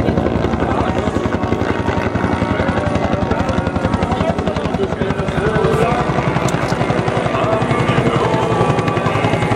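Agusta Bell 212 helicopter flying overhead, the fast, even beat of its two-blade main rotor steady throughout and growing a little louder in the second half.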